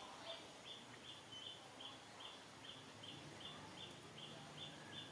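Faint outdoor ambience with a short, high chirp repeating steadily, about three times a second.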